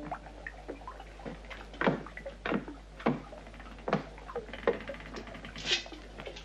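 Footsteps coming down a wooden staircase, a step roughly every two-thirds of a second for a few seconds.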